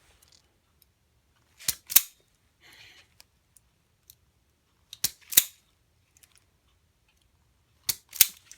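Hand wire-stripping tool snapping shut on the vacuum cord's wires: three pairs of sharp clicks, the two clicks in each pair about a third of a second apart, one pair for each of the three wires.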